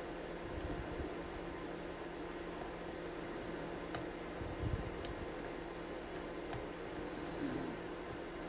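Scattered small clicks of a lock pick and tension wrench working the pins inside a 50 mm brass padlock, with a few soft handling bumps, over a steady background hiss.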